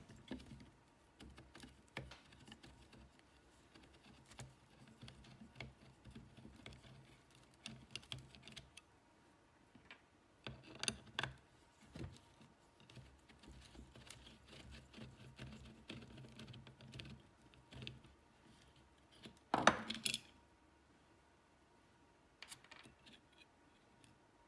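Screwdriver working the small screws out of a Mercedes W124 rear window regulator motor's gearbox housing: faint clicks and scrapes of metal on metal, with a louder clatter about twenty seconds in.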